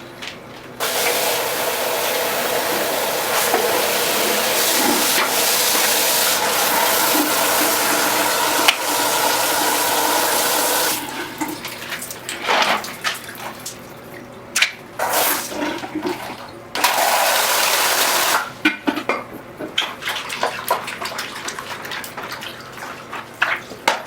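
Tap water running steadily into a basin for about ten seconds, then cut off. After that come short, uneven splashes of water and one more brief run from the tap.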